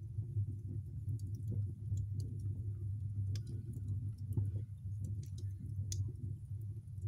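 Wood fire with an ankle boot in it, burning with a steady low rumble and scattered sharp crackles and pops, the loudest pop about six seconds in.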